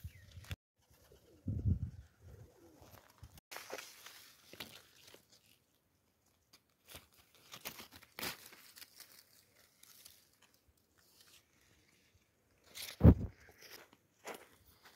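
Fig leaves rustling and scattered light clicks as a green fig is handled and picked from the tree by hand. A single loud low thump comes near the end.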